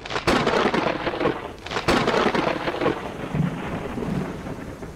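Thunder sound effect: a sudden crack of thunder, a second crash about two seconds in, then a rumble that fades away.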